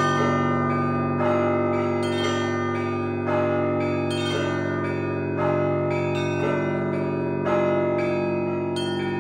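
Russian Orthodox festal peal (trezvon) on a set of church bells. The deep tones of the big bells ring on while clusters of smaller bells are struck about once a second, each stroke ringing over the one before.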